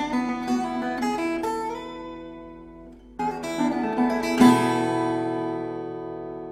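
Acoustic guitar in DADGAD tuning playing an Irish tune: picked notes that fade, a brief pause about three seconds in, then a few more notes and a strummed chord about four and a half seconds in that rings out and slowly dies away.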